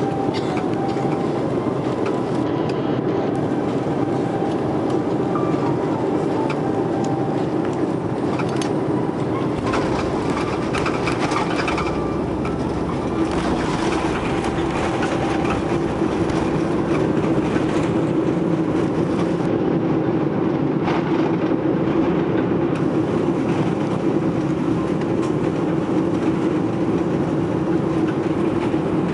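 Airbus A330 landing, heard inside the cabin: steady engine and airflow noise, then about ten seconds in a low rumble as the wheels touch down and roll on the runway. A few seconds later comes a louder roar as the aircraft slows on the runway.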